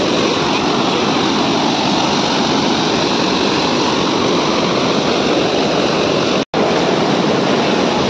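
Water of a rocky waterfall cascade rushing steadily, loud and close. The sound cuts out for an instant about six and a half seconds in, then carries on.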